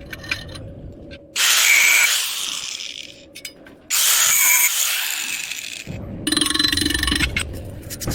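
A power tool working metal: two loud hissing bursts, each starting suddenly and fading over about two seconds, then a buzzing, crackling stretch near the end.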